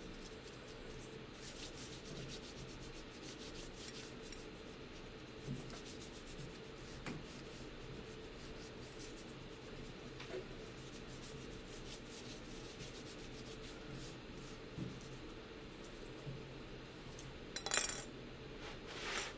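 Hand rubbing the back of a sheet of printing paper laid over an inked block, burnishing the print by hand: soft scattered rubbing and light ticks, with two louder paper rustles near the end.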